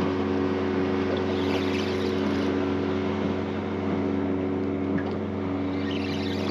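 A boat's motor running at a steady, unchanging pitch, over a constant hiss of wind and water.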